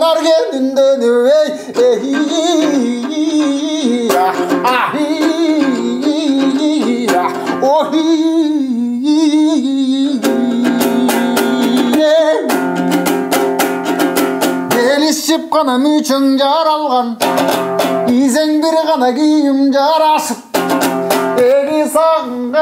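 A man singing a Kyrgyz folk song in a wavering, ornamented voice to his own komuz, the three-string Kyrgyz lute. About ten seconds in, the voice stops for a few seconds of fast komuz strumming, then the singing comes back in.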